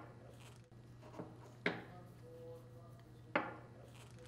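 A few faint metallic clicks, two of them sharp with a brief ring after each, as a steel pick and the parts knock together while O-rings are pried off a dump valve's threaded steel plug and stuffing box.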